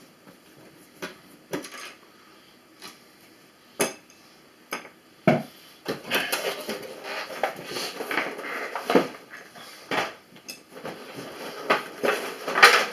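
Small hard computer parts and hardware being handled: scattered clicks and knocks, then a busier clatter with rustling from about halfway through.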